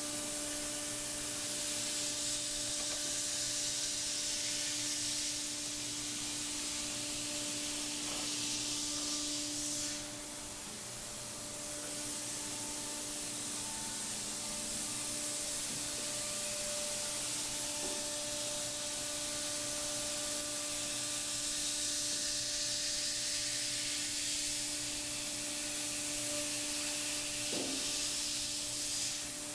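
Thermwood five-axis CNC router at work, its spindle giving a steady hum under a constant hiss from the air blast on the 1/8-inch cutter as it routes holes in polyethylene. The hiss dips briefly about ten seconds in.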